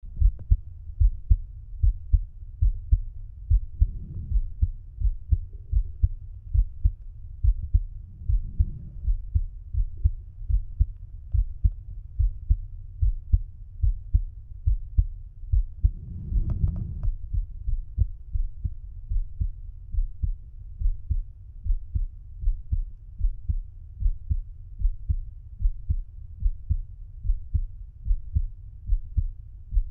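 A man's resting heartbeat heard through a stethoscope bell at the mitral area (apex), lying on his side: a steady, regular beat of low lub-dub pulses. Three brief low rumbles rise over the beat, the loudest a little past halfway.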